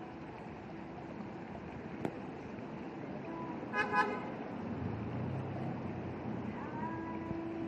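A vehicle horn gives two short toots about four seconds in, over a steady background of traffic noise. A sharp click comes about two seconds in.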